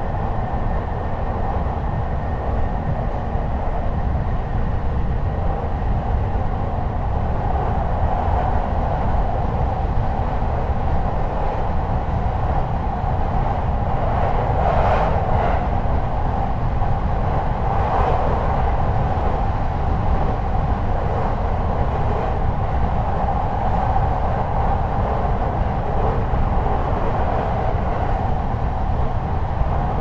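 Steady running noise of E129-series electric multiple-unit motor car KuMoHa E128-114 under way, heard aboard: wheels rolling on the rails with the car's rumble. A faint high tone near the start fades away, and there are a couple of brief brighter noises about halfway through.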